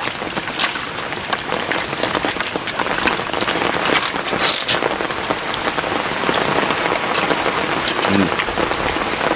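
Heavy rain falling: a steady hiss of rain with many small, sharp drop hits throughout. A man's voice is heard briefly about eight seconds in.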